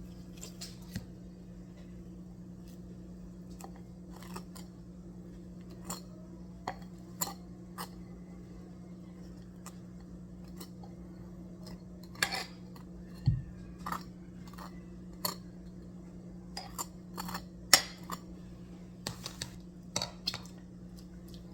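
Kitchen clatter: dishes and utensils clinking and knocking now and then, over a steady low hum.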